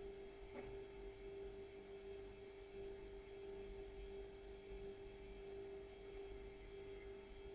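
Faint steady hum: a single held tone with fainter overtones over a low rumble, with a faint tick about half a second in.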